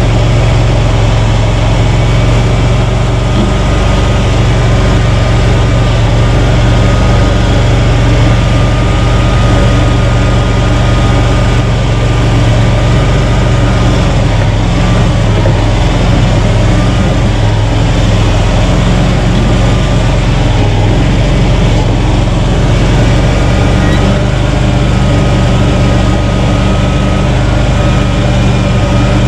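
Loncin 30 hp engine of a Krosh all-terrain vehicle running loudly and steadily at an even speed, without faltering.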